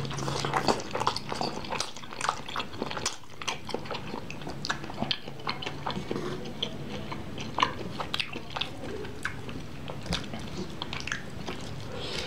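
Close-miked eating of saucy instant noodles: slurping and chewing, with many short wet smacks and clicks of the mouth.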